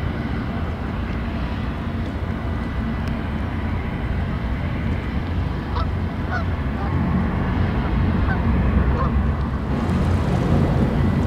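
Steady low rumble of a loaded tanker and its escorting tugboats underway, mixed with wind on the microphone. A few short bird calls come about halfway through.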